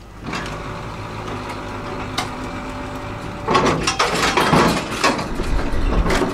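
A ferry's machinery starts with a steady hum. From about three and a half seconds in, louder irregular clattering and rushing noise joins it.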